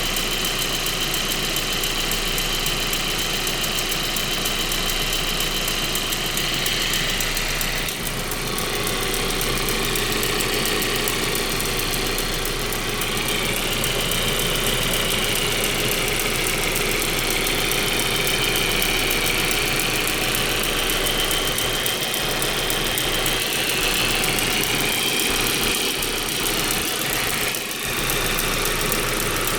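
Turbocharged 1.8T four-cylinder engine idling steadily with a ticking noise whose cause the owner does not know.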